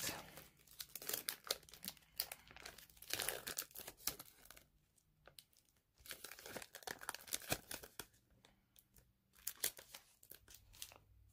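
Foil booster-pack wrapper of a Pokémon trading card pack crinkling and tearing as it is ripped open by hand, in bursts of crackling broken by short pauses.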